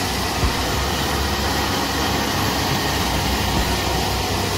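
Zoomlion ZE210E crawler excavator's diesel engine running steadily as the machine digs in wet mud, an even, noisy drone with a low rumble.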